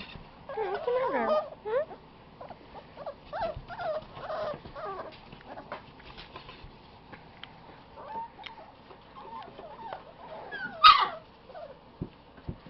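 A litter of five-week-old puppies whimpering and yipping in short, high, squeaky calls, with a busy cluster about a second in and one sharp, loud yelp near the end.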